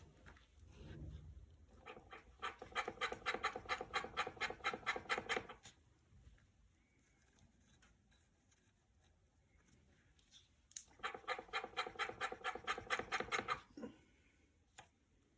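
FOX DHX Factory mountain-bike rear shock clunking: two runs of rapid knocks, about five a second and each lasting about three seconds, the first starting about two seconds in and the second near eleven seconds in. The noise is in question as possibly not normal for the shock.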